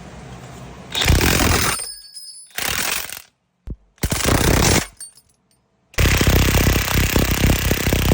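Impact wrench hammering on a bolt in four bursts, each cut off sharply, the last and longest a fast, even rattle running about three seconds.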